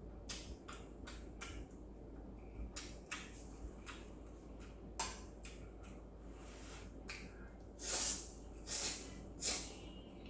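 Close-up eating sounds of a person eating instant stir-fried noodles: wet chewing with mouth clicks and smacks, then three louder slurps near the end.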